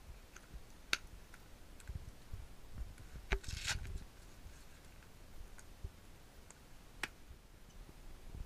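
Buckles of Alpinestars Tech motocross boots being fastened by hand: a few sharp clicks as buckles snap shut, with a brief rasp of a strap being pulled through about three and a half seconds in.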